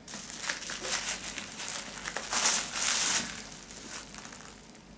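Crinkling of packaging being handled while a book is taken out, strongest about two and a half to three seconds in, then dying away.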